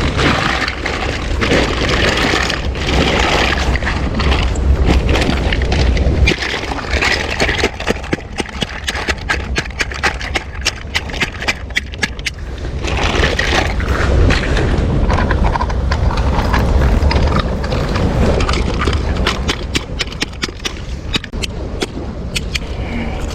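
Wind buffeting the microphone as a steady low rumble, with a run of short clicks and scraping knocks over it.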